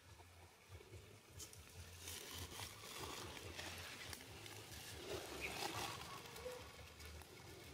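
Faint rustling and crackling of dry leaves and twigs as a long-tailed macaque mother and her newborn move on the leaf litter, a little louder through the middle.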